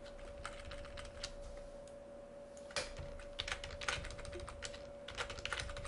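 Scattered clicks and taps of a computer keyboard and mouse being worked, in quick bunches about three seconds in and again near the end, over a faint steady hum.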